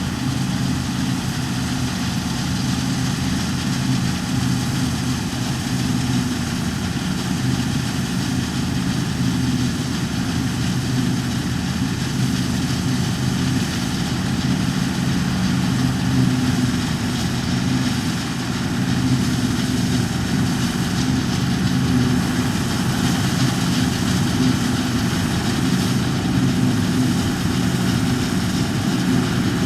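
Heavy harvest machinery engine running steadily at constant speed, a low hum of several steady tones with a mechanical whir above.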